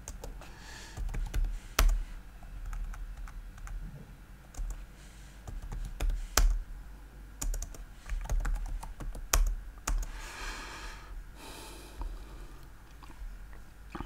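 Typing on a computer keyboard: irregular key clicks, some much sharper and louder than the rest.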